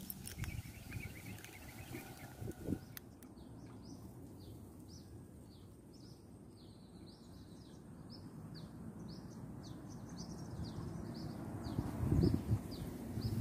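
A small bird chirping over and over, short falling high notes two or three a second, over low rustling of grass underfoot; a couple of louder knocks near the end.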